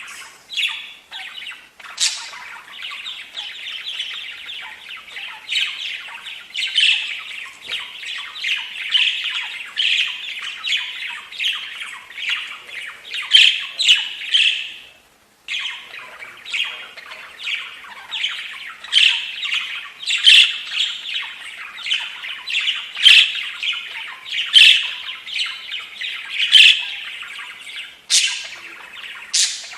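Budgerigar chattering and warbling in a continuous stream, with short sharp squawks and chirps mixed in. The chatter cuts off for a moment about halfway, then resumes.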